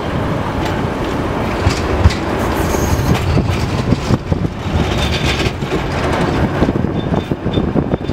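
A 71-623.02 low-floor tram running along its track, heard from inside the car: a steady rumble of wheels on rail with repeated knocks over joints. A few short high-pitched wheel squeals come around the middle and near the end.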